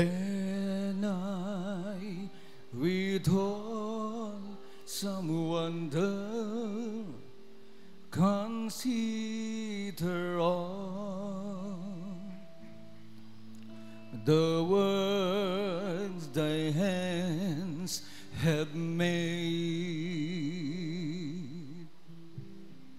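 A slow, solemn song sung in phrases a few seconds long with strong vibrato, over held, sustained accompaniment chords.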